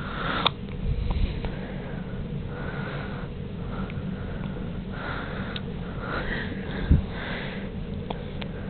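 Newborn baby hiccuping: repeated short, breathy hics, each a quick catch of breath, about a second or so apart. A brief soft thump comes late on.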